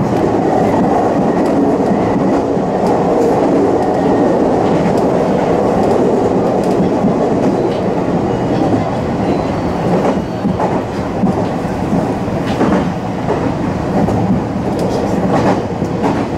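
Meitetsu electric commuter train running along the track, heard from the front of the car: a steady rumble of wheels on rail, with a few sharp clicks from the rails now and then.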